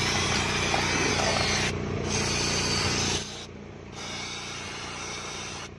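Honda City i-VTEC four-cylinder engine running at a steady idle after its leaking fuel hose was repaired, the car now starting and running normally. The sound gets quieter about three seconds in.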